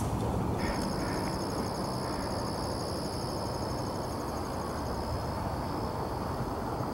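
Crickets trilling in a steady high-pitched chorus that starts about half a second in, over a low, even rumble.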